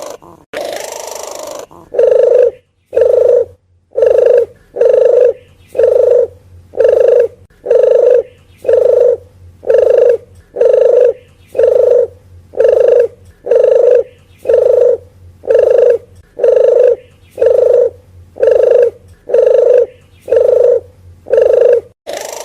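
Red collared dove (puter geni) cooing: a rougher, hissier call in the first two seconds, then a steady run of about twenty short, low coos, roughly one a second.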